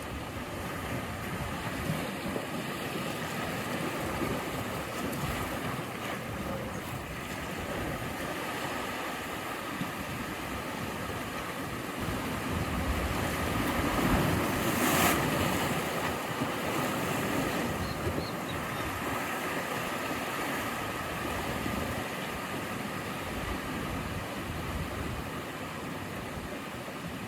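Sea waves surging and washing on a rocky shore, a steady rush that swells to its loudest with one bigger wave about halfway through.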